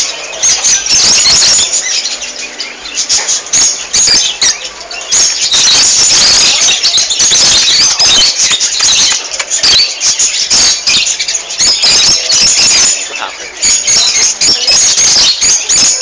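A large flock of small caged birds, canaries and small parrots, calling together in a dense, shrill chorus of rapid chirps and squawks without pause. It grows a little louder from about five seconds in.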